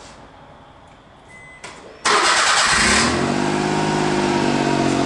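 A car engine is started about two seconds in, after a short faint beep and a click: a brief crank, then it catches, flares and settles into a steady idle. It runs through a freshly fitted used factory muffler, in place of a louder aftermarket one.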